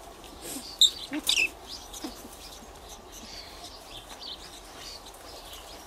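A live rat squeaking a few short, high, sharp times about a second in as it dangles by its tail, a distress squeal. Fainter high chirps follow.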